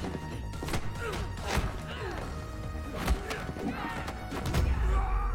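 Hand-to-hand fight sound effects: several sharp punches and body blows landing, the hardest about one and a half and three seconds in, over a dramatic action music score that swells into a heavy low rumble near the end.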